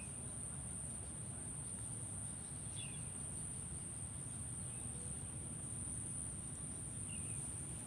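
Insects trilling in one continuous, steady high-pitched drone over a low outdoor rumble, with a few faint short chirps now and then.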